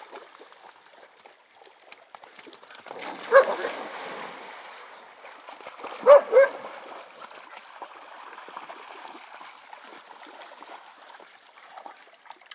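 Dogs barking: one bark about three seconds in and a quick pair about six seconds in, over water splashing and trickling as the dogs wade in a pond.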